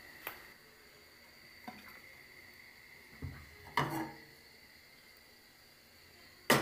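A few scattered clinks and knocks of kitchenware being handled, plates and a metal pan. The loudest comes near the end, and a faint steady high whine runs underneath.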